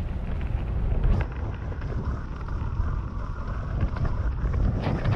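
Wind rushing over the microphone and the low rumble of a mountain bike rolling over a dirt trail, with two sharp knocks, about a second in and near the end.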